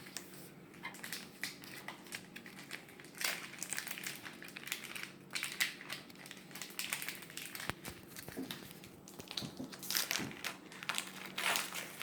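Crinkling and rustling of a foil Pokémon booster-pack wrapper being handled and opened, in irregular bursts that are busiest around three to five seconds in and again near the end.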